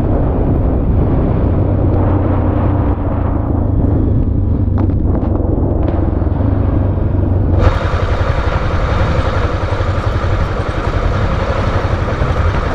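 Motor vehicle on the move: steady engine rumble with road and wind noise. About two-thirds of the way through, the sound turns harsher, with more hiss added.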